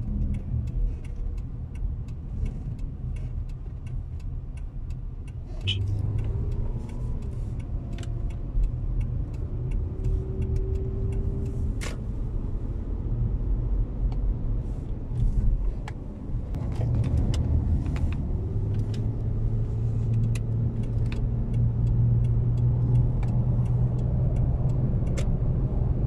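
Car driving, heard from inside the cabin: steady engine and road rumble, with a humming engine tone that comes and goes and scattered light clicks and rattles.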